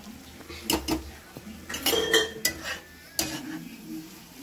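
Metal kitchen utensils clinking and knocking against pots and dishes: several sharp clinks, a few with a brief ring around two seconds in.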